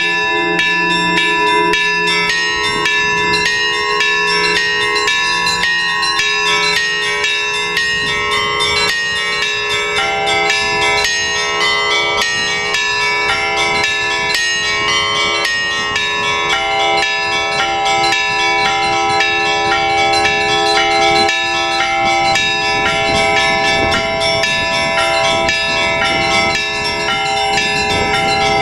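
Orthodox church bells rung by a bell ringer: a rapid, continuous peal of small high bells struck over the lasting ring of larger, lower bells.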